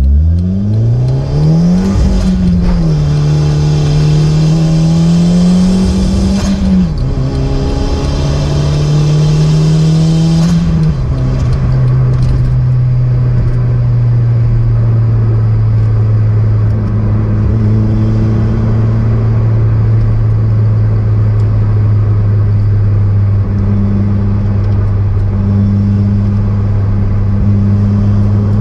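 Turbocharged car engine pulling hard through the gears. Its pitch climbs and drops back at three gear changes, with a high turbo whistle under load. After about eleven seconds it settles to a steady cruise and the whistle fades.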